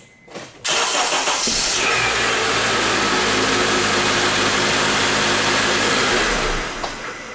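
A 2007 Honda Accord's four-cylinder engine is cranked by the starter and catches within about a second. It then runs steadily, getting quieter near the end. It starts readily on a freshly fitted battery that replaces one with a bad cell.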